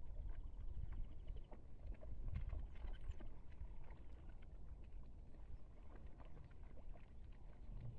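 A pack of African wild dogs splashing and jostling in a shallow muddy pool, with short scattered splashes and scuffles and a few high chirps, over a steady low rumble.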